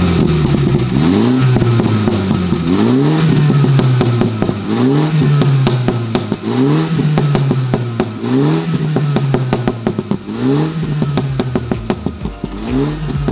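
MINI Cooper S's turbocharged four-cylinder engine, heard at the twin exhaust tips, being free-revved on a cold engine. It is blipped about seven times, each a quick climb in revs that falls back to idle, roughly every two seconds.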